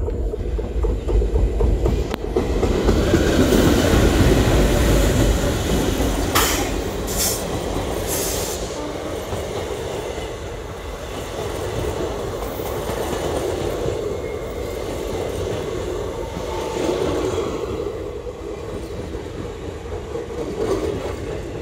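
Twin WDG3A diesel locomotives (ALCO V16 engines) passing close by, loudest a few seconds in, followed by the train's coaches rolling past with a steady wheel rumble and clickety-clack over the rail joints. There are three short sharp noises about six to eight seconds in.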